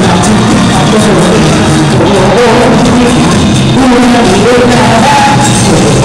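Loud live music played through a PA system, with a singer's voice carrying the melody over the backing; it holds at a steady high level throughout.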